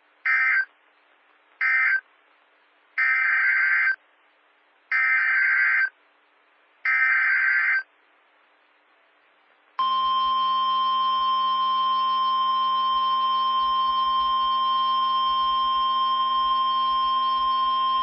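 Emergency Alert System SAME data bursts, a harsh digital screech: two short end-of-message bursts, then three header bursts of about a second each announcing the next warning. About ten seconds in, NOAA Weather Radio's steady 1050 Hz warning alarm tone starts.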